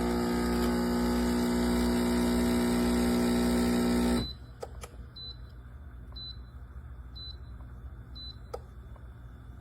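Espresso machine pump running with a steady loud hum, cutting off suddenly about four seconds in. A few clicks and a series of short high beeps about a second apart follow.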